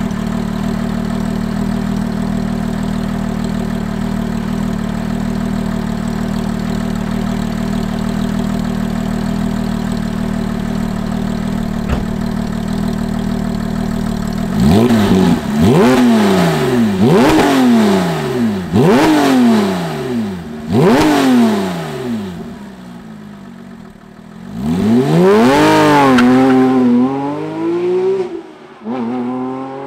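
Porsche 997.1 GT3 RS's 3.6-litre Mezger flat-six, centre muffler deleted, idling steadily, then blipped in five quick revs. After a short lull it launches hard, the revs climbing high before it shifts up and pulls away.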